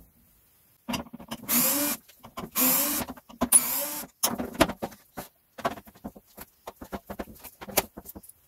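Plastic engine air filter boxes being opened by hand: a few short scrapes of plastic on plastic, then a quick scatter of clicks and knocks as the lids and filters are handled.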